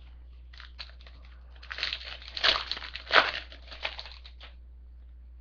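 Foil wrapper of a 2012 Upper Deck SP Authentic football card pack crinkling and tearing as it is opened, a run of crackly rustles lasting about three seconds.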